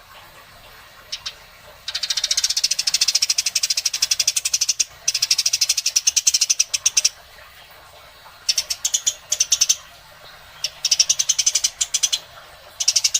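Harsh, rapid rattling bird calls of the 'kasaran' kind, used as master recordings to tutor songbirds, coming in bursts of one and a half to three seconds with short pauses between them. A couple of single clicks come just before the first burst.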